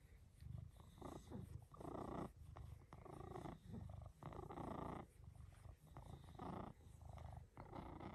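Maine coon cat purring softly close up, a low rumble that swells and eases with each breath as its chin is scratched.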